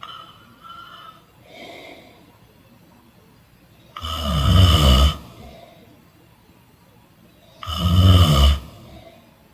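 A person snoring: two loud snores, each about a second long and some four seconds apart, with a low rattle to them. Two softer breaths come in the first two seconds.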